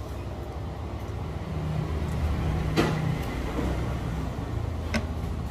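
Low, steady engine rumble of a nearby motor vehicle, growing louder about a second and a half in, with two short sharp clicks of cutlery against a plate.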